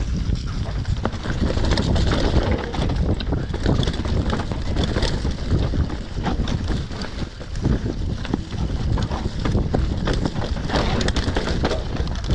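Mountain bike descending a dirt forest trail: wind buffeting the microphone over the rumble of tyres on dirt, with frequent clattering knocks and rattles from the bike over bumps.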